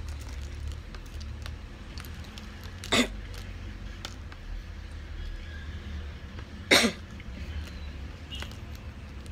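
Two short coughs, about three seconds in and again about four seconds later, over faint clicking of small plastic building bricks being handled and pressed together.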